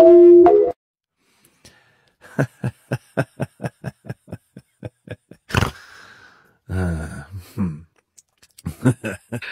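Mallet-percussion music that stops under a second in, then after a pause a fast, even run of short vocal sounds, about five a second, followed by a sharp knock and a few more voice sounds.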